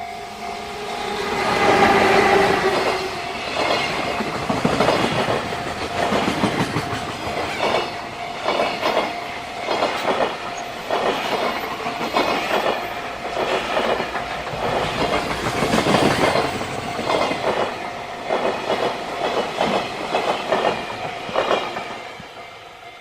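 JR Freight train passing at close range, its wheels clattering over the rail joints in repeated clusters of knocks as the wagons go by, loudest early on and fading near the end. A level-crossing warning bell rings steadily underneath.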